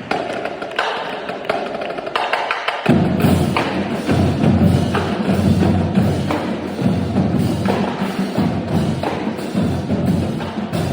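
Marching drumline playing. Crisp, rapid stick strikes open the passage, and about three seconds in the bass drums come in underneath with a heavy low beat.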